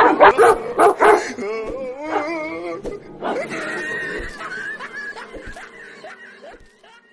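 Dogs yipping in a quick run of sharp calls over the first second, then wavering, whining calls that grow fainter and die away near the end.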